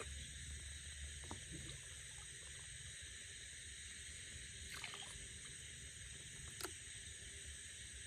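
Steady high-pitched chirring of night insects, with a few faint knocks and splashes, the sharpest about six and a half seconds in.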